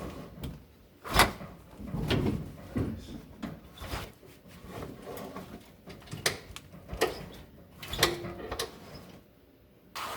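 A string of mechanical clunks and clicks as the parking brake of a 1971 Oldsmobile 98 is tried after adjustment, the loudest knock about a second in; the brake is not ratcheting into place.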